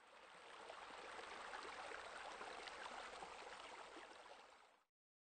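Faint rushing, crackly hiss like running water, swelling in over the first second and fading away shortly before the end.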